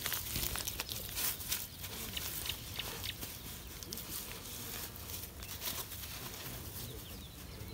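Hands scraping and pressing dry, crumbly soil to firm it around a newly planted seedling: a continuous run of soft scrapes and crunches over a low rumble.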